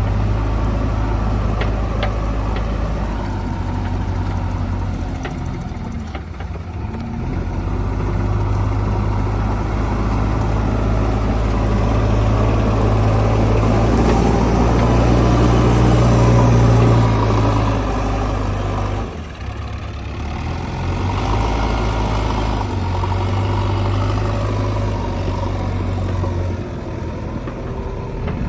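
Diesel engine of a JCB 3DX backhoe loader running under working load as it loads mud. It grows louder and busier through the middle, drops off suddenly at about 19 seconds, then picks up again.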